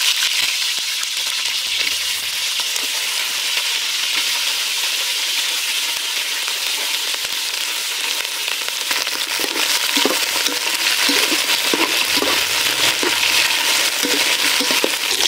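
Cauliflower florets, blanched and still wet from washing, sizzling steadily as they go into hot oil in a metal pot. From about halfway through, a spatula scrapes and knocks among them as they are stirred.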